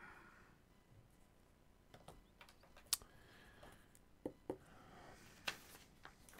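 A quiet room with scattered small clicks and taps from someone handling things at a desk, the loudest about three seconds in. A faint high hum fades out about half a second in.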